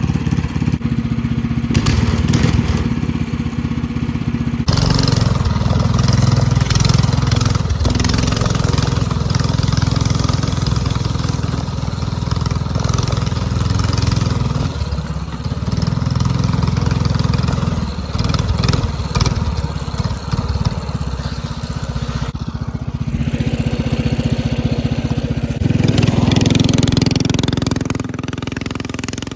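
Small minibike engine running under way, its sound changing abruptly a few times across the stretch.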